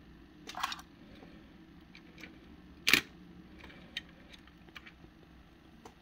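Small clicks and knocks of die-cast toy cars being handled, with a short cluster near the start and one sharper click about three seconds in.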